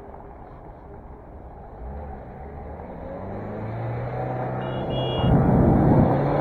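A small white van's engine comes up from behind and overtakes close by, growing steadily louder and rising in pitch as it accelerates past, ending in a loud rush of engine and tyre noise.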